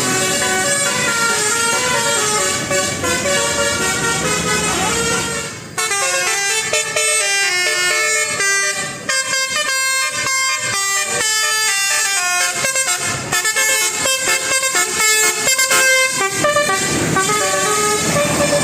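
Bus telolet horn, a multi-tone musical horn, playing a tune of loud stepped notes. After a brief break about six seconds in, it plays a quicker run of short repeated notes.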